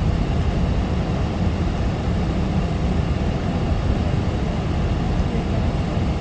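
Steady low rumble of a Boeing 777 airliner, heard from inside the cabin.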